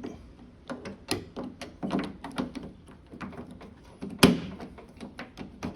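Irregular clicks and knocks as a door lock assembly is worked back into place inside a 2013 Hyundai Sonata Hybrid's front door, with one louder knock about four seconds in.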